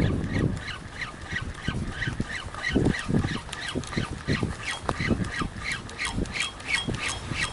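Fishing reel being cranked in a steady retrieve: a rhythmic squeaky clicking, about three or four a second. Under it, water slaps irregularly against the boat's hull, with a louder low rush at the very start.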